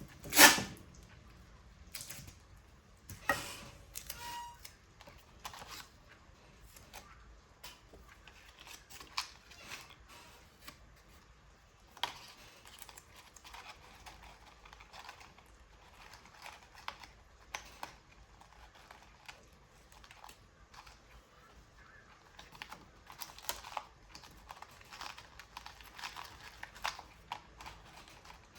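Hands working with paper and small craft tools: scattered light clicks, taps and rustles, with a sharp click just after the start, another about three seconds in, and busier ticking near the end. A brief short beep sounds about four seconds in.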